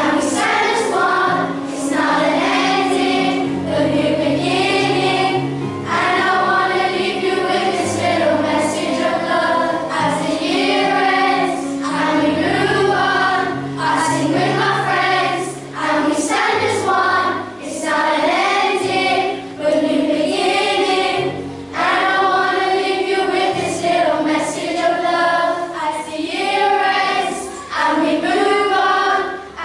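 A choir of primary-school children singing a song together in unison, over an accompaniment of low held notes that change every second or two.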